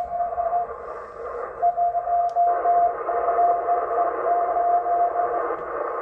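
Morse code (CW) from the M12 number station on 8118 kHz, heard through a Yaesu FTdx10 receiver: a single beat tone keyed on and off over steady receiver hiss. The tone is unsteady and breaks up, affected by aurora flutter.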